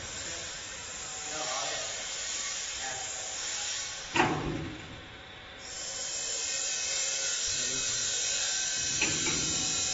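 Red sheet-steel side door of a cattle crush swung shut, closing against its steel frame with one loud metallic clang and a short ring about four seconds in. A lighter metal click of a latch follows near the end.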